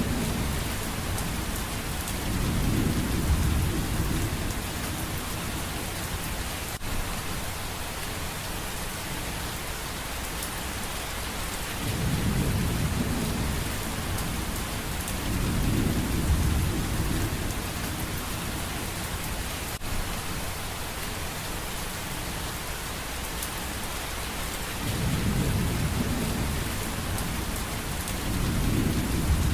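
Steady heavy rain with low rumbles of thunder rolling in and out six times, in pairs a few seconds apart.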